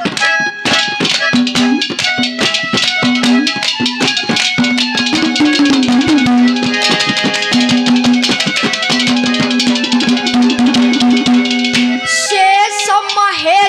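Instrumental interlude of Haryanvi ragni folk music: a harmonium holds steady notes over fast, dense hand-drum strokes. Near the end a young male voice begins singing over the accompaniment.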